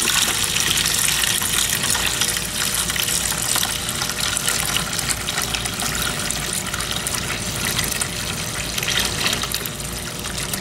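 Evapo-Rust rust remover pouring in a steady stream into a stainless steel pan of rusty bolts and pins, splashing as the pan fills. It eases slightly toward the end.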